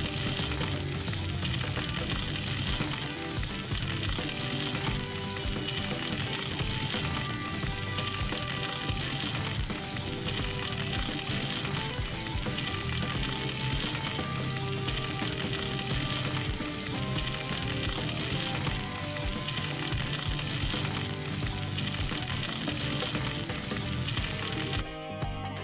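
Ribeye steak searing in a hot, oiled cast-iron skillet: a steady sizzle, the final high-heat sear of a reverse-seared steak. The sizzle cuts off shortly before the end.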